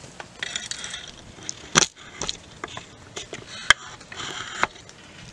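Rustling and scraping of handling, with a loud knock about two seconds in and a sharp click a little before four seconds, as the camera is swung around.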